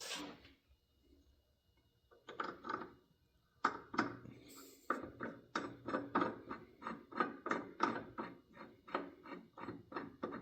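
A regular run of short scraping or rubbing strokes, about three a second, starting a few seconds in after two isolated strokes.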